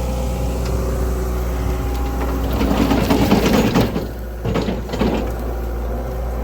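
John Deere 331G skid steer's diesel engine running steadily while it drives a Gyru-Star star screening bucket's rotors. About two and a half seconds in, a louder stretch of rattling and clatter lasts about a second and a half as topsoil and debris are worked through the bucket, then the sound drops briefly before the steady running returns.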